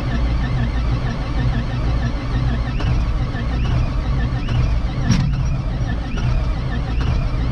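Engine running steadily at an even speed, with one sharp click about five seconds in.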